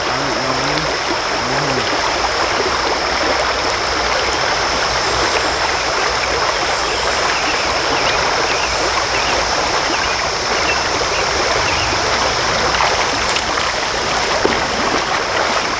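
Creek water running steadily over riffles, an even rushing with no break, and a steady thin high-pitched tone above it.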